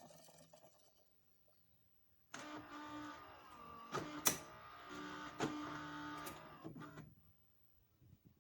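Philips 3200 Series fully automatic espresso machine running for about five seconds: a steady mechanical whirr with a few sharp clicks, starting and then stopping.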